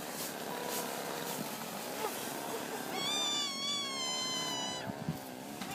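A small child's long high-pitched squeal, starting about halfway through and lasting nearly two seconds, after softer vocal noises.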